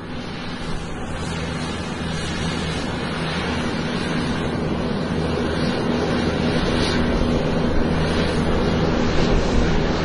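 An airplane taxiing: a steady engine rumble and rushing noise with a few low steady tones, growing slowly louder.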